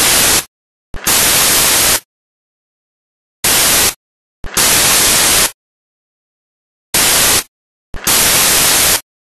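Loud bursts of white-noise static switched on and off in a repeating short-long pattern: about half a second of hiss, a short gap, then about a second of hiss, with the pair recurring every three and a half seconds.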